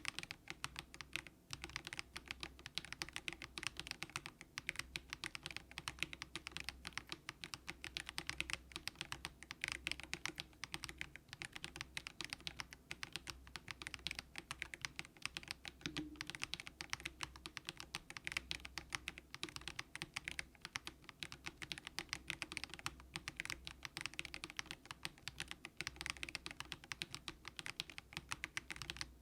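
Typing on a Monstargear Ninja87 mechanical keyboard with a plastic case and light, low-force Haimu Sea Salt switches. The keystrokes come quickly and without a break.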